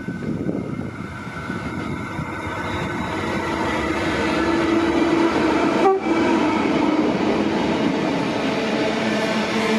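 A Pacific National PN-class diesel locomotive hauling a container freight train passes close by, its engine running and growing louder as it draws level. Near six seconds in the sound cuts out for a moment.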